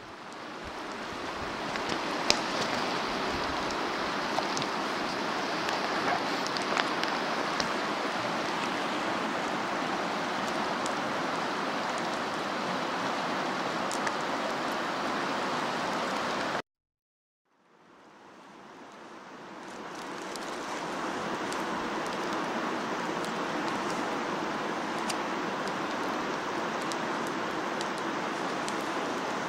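A river rushing steadily over a gravel bed: a continuous noise of flowing water that fades in at the start. There are a few sharp ticks in the first several seconds. About 17 seconds in the sound cuts out for a second, then fades back in to the same steady rush of water.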